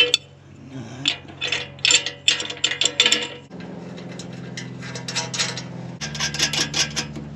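A quick run of mechanical clicks and knocks, then a steady low mechanical hum that shifts pitch about six seconds in.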